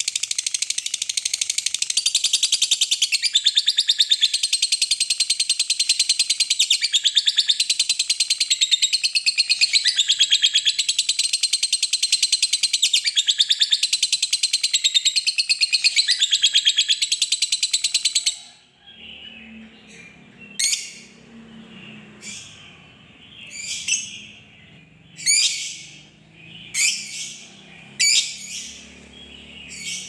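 Lovebird singing its long 'ngekek' song: a loud, rapid, unbroken high chattering trill that runs for about eighteen seconds and stops abruptly. After it come separate sharp chirps, about one a second.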